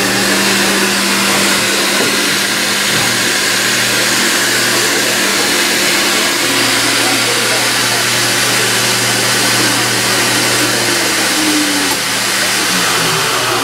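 Build-A-Bear stuffing machine's blower motor running steadily with a loud rush of air as fluff is blown into a new bear. Its hum drops away near the end.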